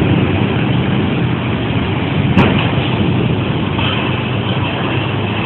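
Strong wind rushing steadily, with one sharp crack about two and a half seconds in.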